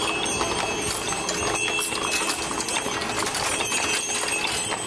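Hooves of a pair of draft horses clip-clopping on asphalt as they walk, pulling a stagecoach past at close range.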